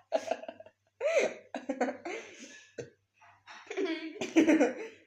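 Laughing and giggling in several short bursts, mixed with cough-like throat sounds.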